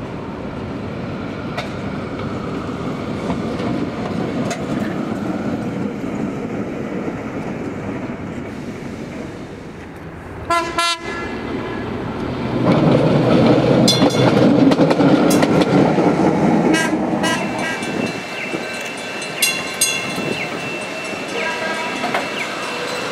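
Vintage PCC streetcar running on street track: a steady rumble and clatter of wheels on rails, loudest from about 12 to 17 seconds in. A short warning tone sounds near 11 seconds, and thin high tones and clicks come near the end.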